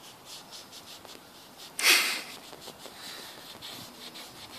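Short repeated scrubbing strokes against a metal part as rust is cleaned off it, most likely the flywheel's friction face. A single, much louder breathy whoosh comes about two seconds in.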